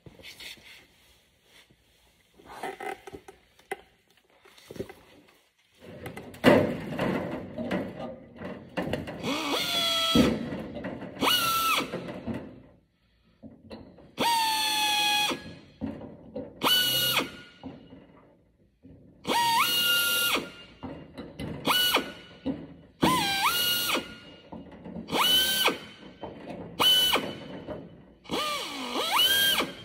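Power drill drilling out rivets from the aircraft's nose skin in repeated short bursts, the motor's pitch sweeping up at the start of each. A few light knocks come first.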